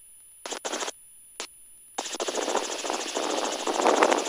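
A few short intercom clicks, then about two seconds in a keyed headset microphone opens onto loud, steady helicopter cabin noise: engine and rotor with wind rush.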